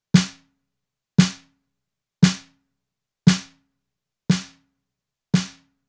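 A recorded snare drum hit over and over, one stroke about every second, six strokes in all. Each is a sharp crack with a short ringing body. The first four play with the compressor bypassed. The last two come out a few dB quieter as the compressor, switched back in, turns their peaks down.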